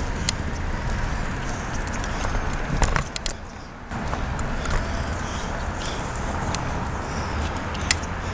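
Bicycle riding with a handlebar-mounted camera: steady wind and road noise, with sharp metallic rattles and clicks from the bike and its mount as it rolls over the pavement, a cluster of them about three seconds in.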